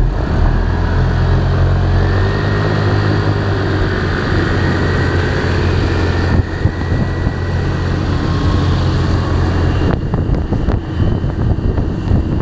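Motor scooter being ridden on wet streets: a steady low engine rumble under heavy wind and road noise on the mirror-mounted action camera. The sound dips briefly about six seconds in, and a few sharp clicks come near the end.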